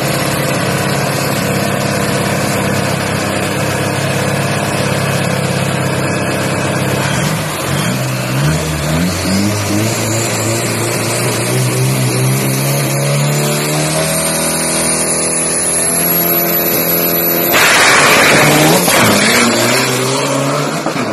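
Isuzu D-Max turbo-diesel drag pickup engine held at steady revs at the start line, then building revs with a high whistle rising in pitch: the turbo spooling up. About three-quarters through, a sudden loud blast as the truck launches, then the engine note falls away as it pulls down the track.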